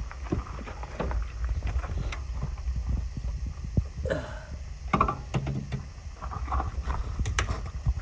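Irregular metallic clicks and knocks of hand tools and parts being handled while the drive belt is taken off a Toyota Estima engine, over a steady low rumble. A brief wavering pitched sound comes about four seconds in.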